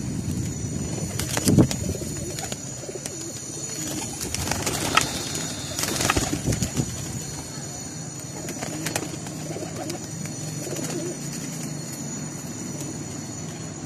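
Several domestic pigeons cooing in a wire-mesh loft. A few brief, louder sharp sounds come about a second and a half in and again around five and six seconds in.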